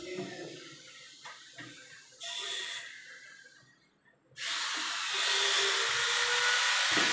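Light knocks and scrapes as a ceramic toilet cistern is handled and seated on its bowl. About four seconds in, a steady hiss starts and carries on.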